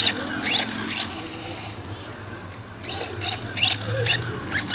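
Kyosho Ultima Pro XL RC buggy with a brushless motor running over grass: short bursts of high-pitched motor and tyre noise in quick clusters as the throttle is blipped, over a steady low hum.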